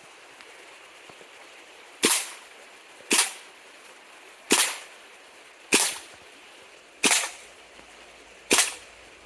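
Gas-powered airsoft gun firing single shots, six in all, spaced about one to one and a half seconds apart.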